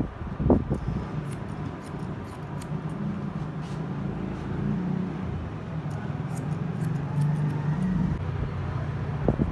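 Steel hair-cutting scissors snipping wet hair in short, scattered crisp clicks. Under them, a steady low motor hum sets in about three seconds in and runs until just before the end.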